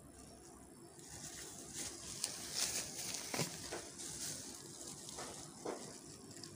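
Thin plastic bags worn over the hands crinkling and rustling as they handle a plastic bottle, with a few sharper crackles. The rustle starts about a second in and dies down near the end.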